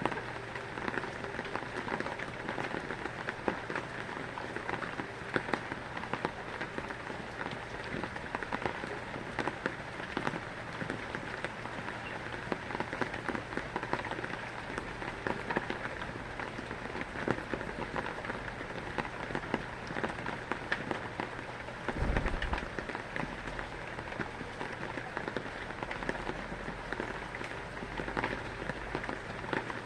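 Steady rain pattering on a surface, a dense patter of drop hits. A brief low thump about two-thirds of the way through.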